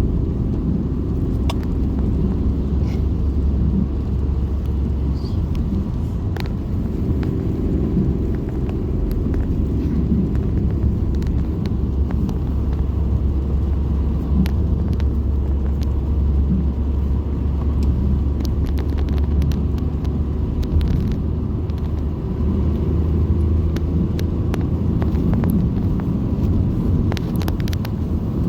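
Car driving along a road: a steady low rumble of tyre and engine noise, with scattered faint clicks.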